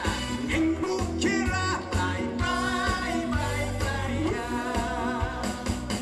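Male trot singer singing live into a microphone over an upbeat backing track with a steady beat.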